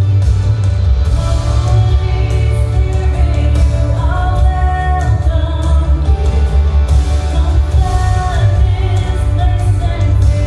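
Worship song playing: a singer's voice over a steady bass and band accompaniment.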